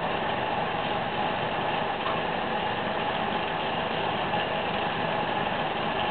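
Glassblowing bench torch burning steadily: a constant rushing flame noise with a faint steady hum in it.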